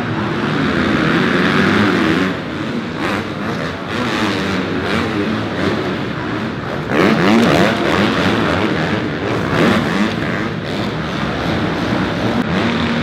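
Several motocross dirt bike engines revving hard during a race, their pitch climbing and dropping with the throttle, with a sharp climb in pitch about seven seconds in.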